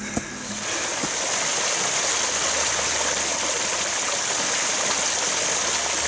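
Small mountain stream running over mossy rocks, a steady rush of flowing water.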